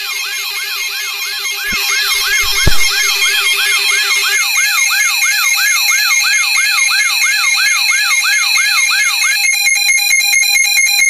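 Layered electronic alarm and siren sounds: a fast wailing siren sweeping up and down about two and a half times a second over steady and beeping alarm tones, with a low thud a little over two seconds in. The wail stops near the end, rapid beeping carries on briefly, and everything cuts off abruptly.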